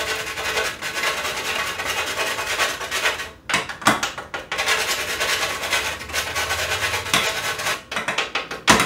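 Whole nutmeg grated on a stainless steel box grater: a steady rasping scrape, broken by a short pause about three seconds in, with a sharp knock near the end.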